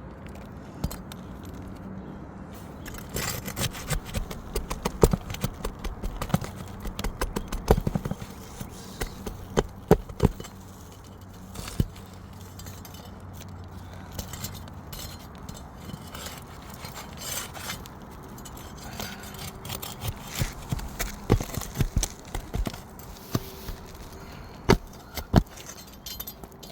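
A thin pry bar and roof snake working under asphalt 3-tab shingles: irregular sharp clicks, taps and scrapes of metal on the gritty shingle, with a low steady hum underneath.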